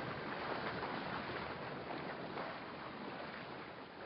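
Water rushing along the hull of a sailing yacht under way: an even wash that slowly fades out.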